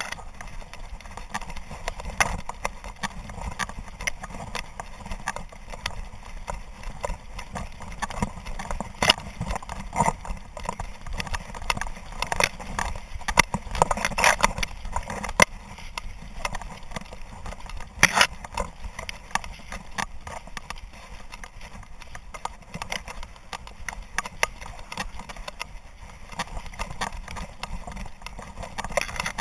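Dry tall grass rustling and scraping against a camera mounted on a running bird dog's back, with the dog's footfalls. Irregular clicks and knocks come through, with a low rumble underneath.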